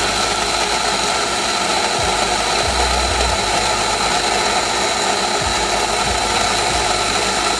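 Electric burr coffee grinder grinding beans into a portafilter, its motor running steadily with a high whine over the grinding noise.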